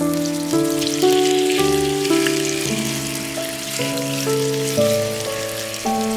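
Background music, a melody of held notes changing about twice a second, over the steady crackling sizzle of meat cutlets frying in oil in a pan.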